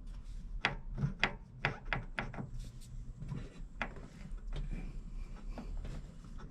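Irregular sharp metallic clicks and knocks, about a dozen, denser in the first couple of seconds, from a Yamaha Drag Star's shaft-drive parts being turned and rocked by hand while checking them for play.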